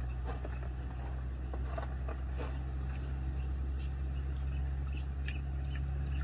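Steady low mechanical hum, like an engine running nearby, with faint scattered clicks and rustles over it.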